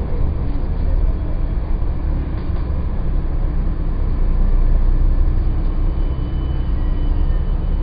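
Steady low rumble of a double-decker bus's diesel engine and road noise, heard from inside on the upper deck. A faint high whine comes in near the end.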